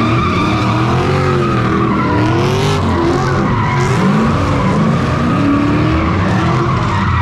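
V8 drift car's engine revving up and down over and over, with tyres squealing steadily as the car drifts.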